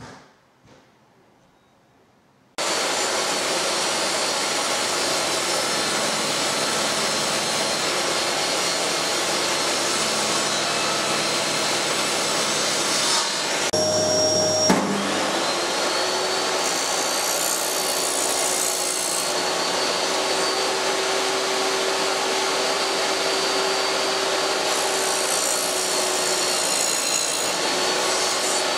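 A few faint clicks, then a table saw with a crosscut sled starts suddenly and runs loudly and steadily as pine boards are cut for a shelf. About halfway a steady whine rises briefly and then holds.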